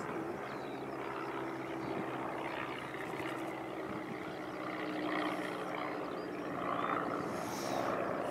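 Propeller aircraft's piston engine running steadily as it flies overhead, a continuous even hum.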